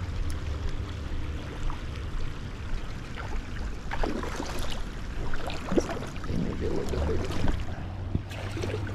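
Creek water running steadily, with a cluster of irregular splashes about four to seven seconds in as a hooked smallmouth bass thrashes near the surface during the fight.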